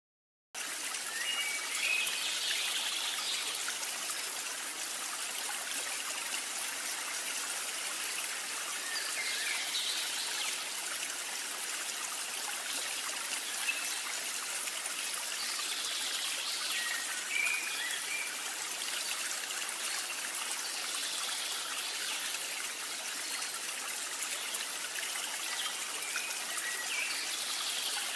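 Steady trickling, running-water noise like a stream, starting half a second in, with short high chirps coming back every several seconds.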